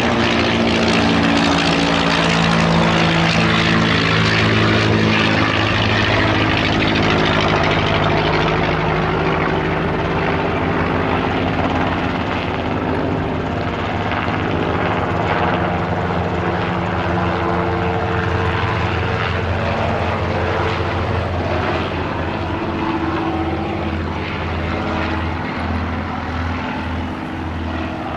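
Vintage propeller biplane flying past, its piston engine and propeller droning, the pitch falling over the first few seconds as it passes. Near the end a light helicopter's rotor beats in a steady rhythm under the drone.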